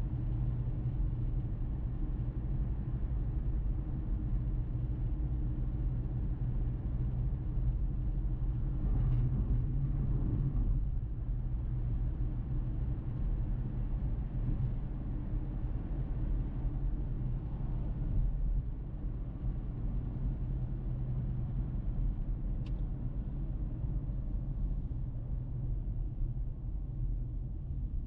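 Car driving along a road: a steady low rumble of engine and tyre noise, easing slightly about two-thirds of the way through.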